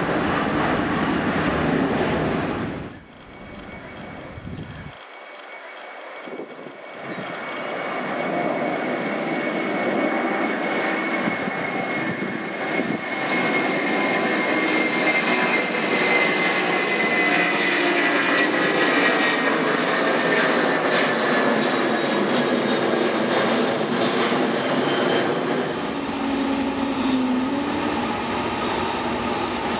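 Jet airliner engine noise. First a Boeing 787-9 on landing approach, then after about three seconds a twin-engine widebody jet climbing out after takeoff: its engine noise builds and holds loud, with a high whine slowly falling in pitch. Near the end the quieter engines of a Boeing 737-800 (CFM56) taxiing.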